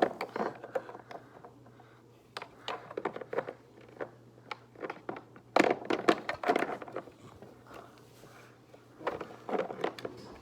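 Toy farm animals being handled and set against a toy house: scattered small clicks and knocks in clusters.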